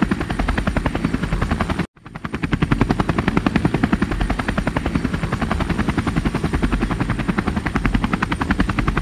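Helicopter rotor blades chopping in a rapid, even rhythm. The sound drops out for an instant about two seconds in and swells back up.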